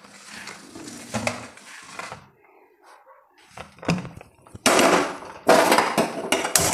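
Pressure cooker handled and set down on a gas stove's metal pan support: soft handling noise at first, a click, then two loud rough scraping, clattering bursts in the last few seconds.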